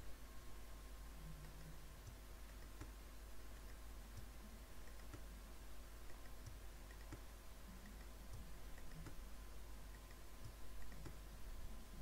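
Faint, irregular clicks of a computer mouse and keyboard Shift key as straight line strokes are clicked into place, over a low steady hum.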